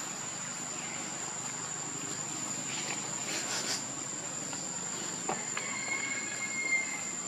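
A steady, high-pitched insect drone over a background hiss, with a few brief faint chirps about three seconds in.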